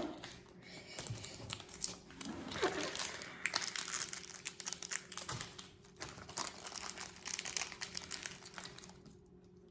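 Plastic and paper packaging crinkling and rustling as it is handled and set aside, in a run of irregular crackles and small clicks that die down near the end.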